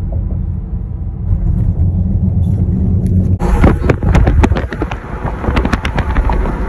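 A car driving, heard as a steady low road rumble inside the cabin. About three and a half seconds in, loud irregular crackling and popping suddenly joins it and runs on for several seconds.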